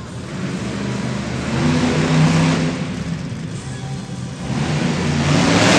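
Bone Crusher monster truck's engine accelerating hard twice, each time rising to a loud peak with a rush of noise: about two seconds in and again near the end.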